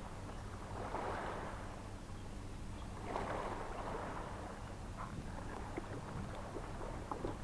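Sea waves washing onto the shore, two swells about a second and three seconds in, with a few faint clicks near the end.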